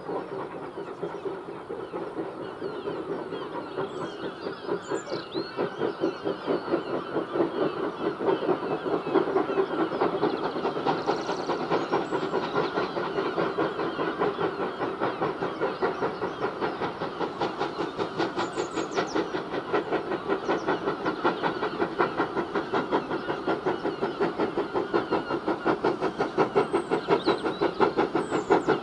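Steam locomotive working a train, its exhaust chuffing in a rapid, even rhythm that grows louder as it approaches.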